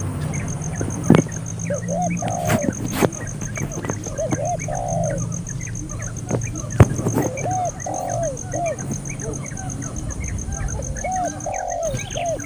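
Birds calling: groups of arched, dove-like cooing notes repeat every couple of seconds among many short high chirps. A fast, even pulsing high tone runs underneath, and two sharp clicks stand out, about a second in and past the middle.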